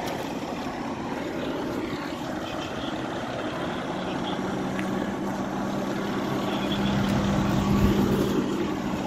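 Fire engines running steadily, with a steady low hum coming in about four seconds in and swelling near eight seconds.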